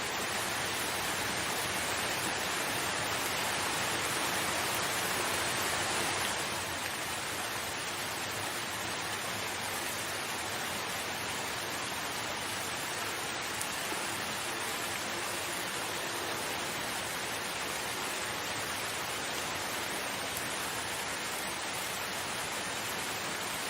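Steady rain falling, a continuous even hiss, a little louder for the first six seconds and then level.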